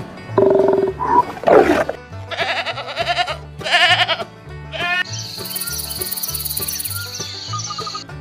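Several short, wavering animal calls, goat-like bleats, over background music with a steady repeating beat, followed from about five seconds in by a steady high shrill tone.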